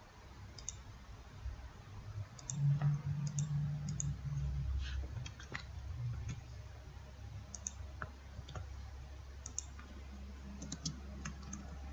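Irregular light clicks and taps of a computer keyboard and mouse, as an expression is typed and edited.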